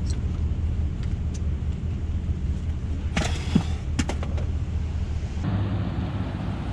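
Car engine idling, heard from inside the cabin as a steady low hum. A couple of sharp clicks and a short rustle come a little past the middle, and the hum shifts abruptly near the end.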